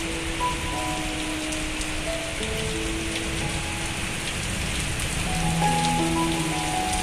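Heavy rain pouring steadily onto a flooded flat concrete rooftop, a continuous hiss of drops on standing water. A soft melody of held notes plays underneath.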